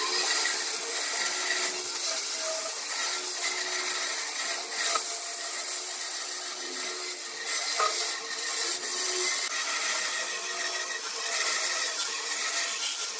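Band saw cutting steadily through a thick glued-up wooden block, the blade's rasping hiss over a steady machine hum.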